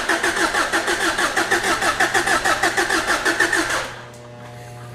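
Subaru EJ25 flat-four being cranked by its starter motor for its first start after an engine swap, with an even chugging about four to five pulses a second without catching. The cranking stops abruptly about four seconds in, leaving a low hum.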